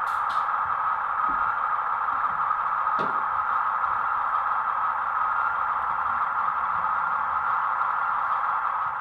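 OO gauge model train running on the layout, a steady mechanical running sound with a few faint clicks.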